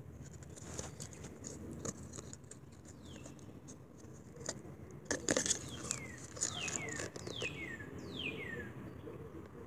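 Handling clicks and rustles of a cardboard tag being turned over in the fingers, loudest about halfway through. Behind them a bird calls with a run of short whistled notes that fall in pitch, from about three seconds in until near the end.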